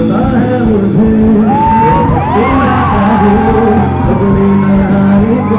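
Live band with drum kit playing while a male vocalist sings into a microphone, with shouts from the crowd over the music.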